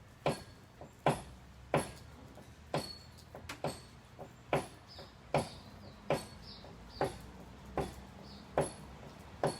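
Steady hammering from remodeling work inside the house: about a dozen sharp blows, one roughly every 0.8 seconds.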